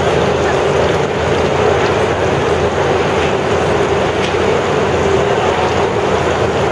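Steady loud rush of air from large fans blowing wind across an indoor pool to fill the dinghies' sails, with a low hum underneath.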